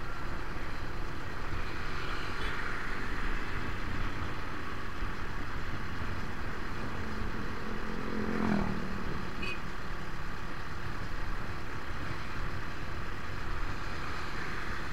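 Steady road traffic noise while travelling along a road, with a vehicle passing close by about halfway through, its engine note falling in pitch as it goes past.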